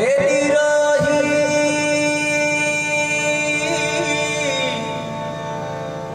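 A male singer holds one long sung note over a sustained harmonium; the voice enters loudly, then slides down and fades near the end while the harmonium plays on.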